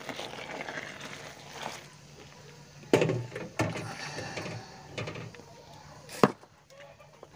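Freshly boiled water poured from a plastic dipper into a basin of tapioca flour, then stirred with a metal spoon to scald the flour into dough. There are a few sharp knocks, about three seconds in and again near six.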